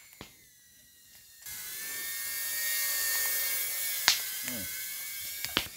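Small FPV quadcopter drone flying, its electric motors and propellers making a steady high whine that starts about a second and a half in. A few sharp clicks cut through it later on.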